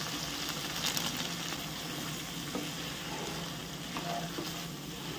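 A thick prawn, fig and potato curry sizzling in a nonstick wok, freshly finished with ghee, while a wooden spatula stirs and scrapes through it.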